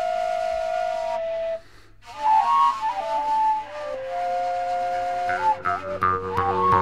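Background music: a slow solo melody of held and stepping notes that breaks off for a moment about two seconds in and then resumes. Near the end a quick beat of evenly spaced clicks joins in.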